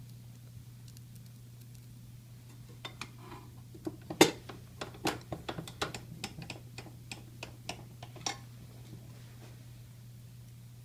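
Small hard clicks and taps of pan head screws and tools being handled while screws are fitted into the case: an irregular run of about twenty quick clicks from about three seconds in to near the end, the loudest a sharp tap just after four seconds. A steady low hum lies underneath.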